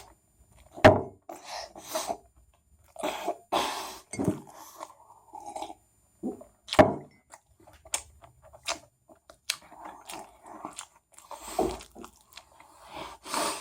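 A person chewing a mouthful of chicken sandwich close to the microphone: irregular wet chewing and mouth sounds in short bursts, with a few sharper crunches, the loudest about a second in and near the middle.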